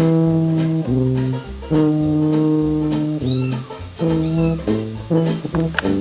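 Background music: an instrumental passage of a swing-jazz song, with sustained brass-like chords over a plucked bass.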